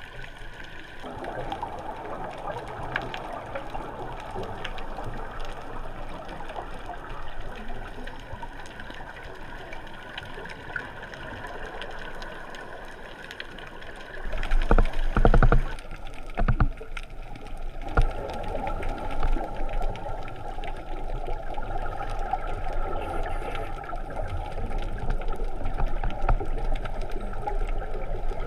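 Muffled underwater water noise heard by a camera in its waterproof housing, with gurgling from scuba divers' exhaled bubbles. A louder, heavier burst of noise comes about fourteen seconds in, followed by a few short knocks.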